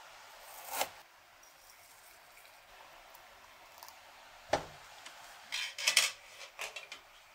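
A metal spoon scoops loose black tea leaves with a brief rustling scrape. About halfway through there is a single sharp knock. A quick run of metallic clinks and clatter follows as a lid is lifted off a pot on the stove.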